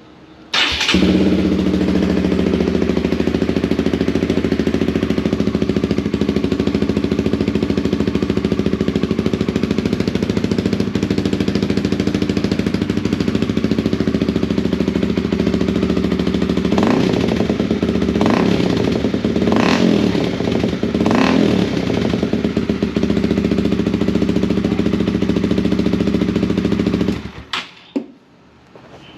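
Honda CBR150R's single-cylinder engine running through a Yoshimura R11 aftermarket muffler: it starts about half a second in, idles steadily, is revved in four quick blips past the middle, then is shut off near the end.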